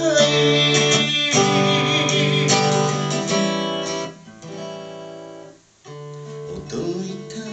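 Steel-string acoustic guitar strummed, its chords left to ring between strokes. The playing goes quieter about four seconds in, stops for a moment, then picks up again.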